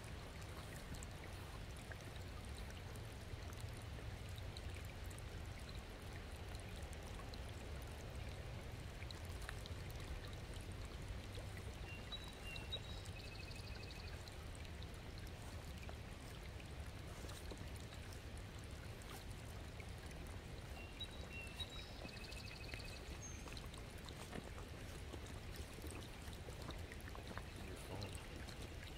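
Small stream running steadily over stones and debris as it refills after a blockage upstream was cleared. A few faint high chirps come through twice, a little before and a little after the middle.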